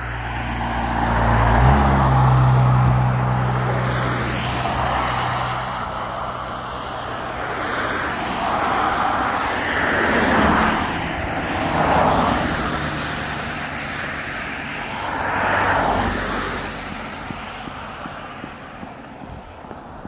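Road traffic on a wet road: a vehicle engine hums low at the start, loudest about two seconds in, then several cars pass one after another, each a swell of tyre hiss and spray that rises and dies away, with the last one about fifteen seconds in.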